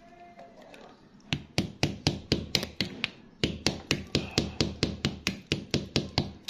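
A hand tool tapping against rock and gravel in a fast, even run of sharp knocks, about four a second, starting about a second in, with a brief pause about halfway through.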